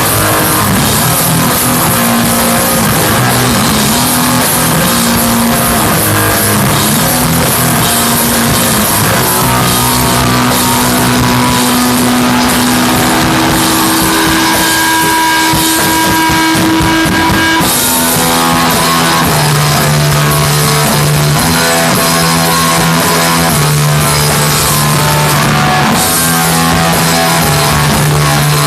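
Rock band playing live: electric guitar, bass and drum kit, loud and continuous. About halfway through a guitar note is held for a few seconds over a thinner bottom end, then the full band comes back in with heavy low notes.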